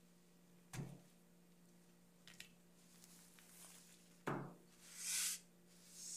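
An embroidery hoop and cloth being handled: two soft knocks, about a second in and again about four seconds in, then a hand brushing across the fabric with a soft hiss near the end, over a faint steady hum.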